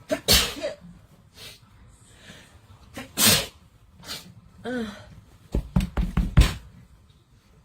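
A woman sneezes twice, about three seconds apart, set off by a nasal swab tickling inside her nose. A short voiced sound follows, then a quick run of low thumps near the end.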